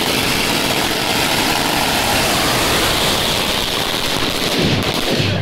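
A long string of firecrackers going off on the ground as one continuous rapid rattle of bangs and crackling that holds steady.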